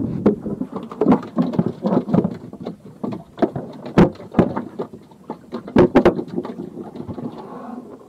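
Irregular knocks and taps on a wooden boat deck, with a sharp loud knock about four seconds in and a quick cluster of knocks near six seconds.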